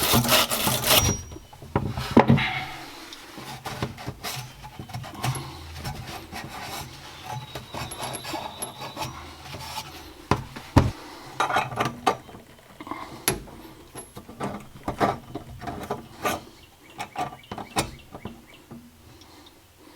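Hand work on PEX plumbing: a second or so of rapid rasping strokes at the start, then scattered clicks, knocks and rubbing as the tubing is handled and fastened in place.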